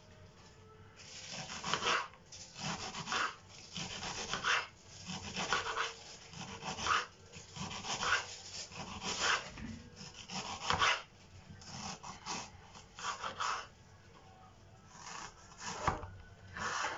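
Kitchen knife slicing an onion on a wooden cutting board: a run of cutting strokes, roughly one or two a second, that pauses briefly near the end before a few more.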